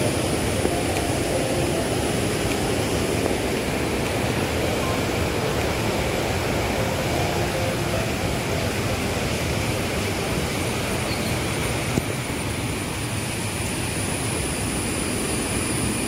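Steady roar of rushing water from the waterfall and its stream. A brief knock comes about three-quarters of the way through.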